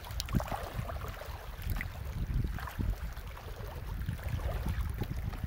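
Wind rumbling on the microphone over sea water, with scattered light clicks and taps.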